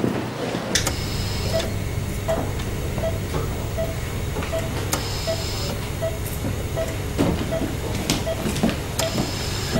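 Hospital patient monitor beeping evenly, a short beep a little more often than once a second, over a steady low hum.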